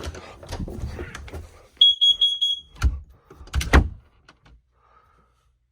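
A smoke alarm sounds one steady, high-pitched beep lasting just under a second, about two seconds in. Handling rustles come before it and two heavy knocks follow it, the second about a second after the beep ends.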